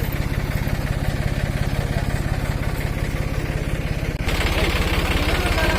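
Diesel engine of a heavy machine running steadily with an even, rapid low pulse; about four seconds in the sound abruptly turns louder and harsher.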